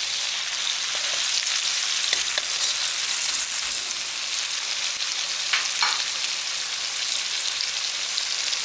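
Shrimp and sliced meat sizzling steadily in hot oil in a wok, with a spatula stirring and scraping against the pan a few times.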